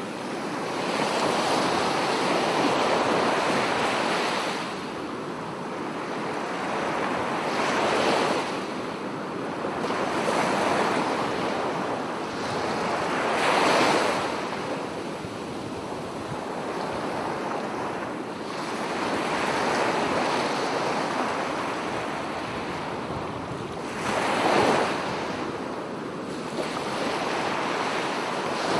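Ocean waves washing in and breaking on a shore: a continuous rushing surf that swells and ebbs every few seconds, with three louder breaking waves about 8, 14 and 25 seconds in.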